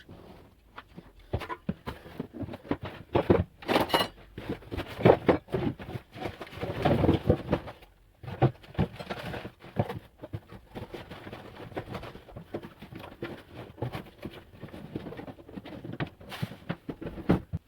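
Irregular rustling, scraping and light knocks from insulation being handled and cut to length, with a denser stretch of scraping noise a few seconds in.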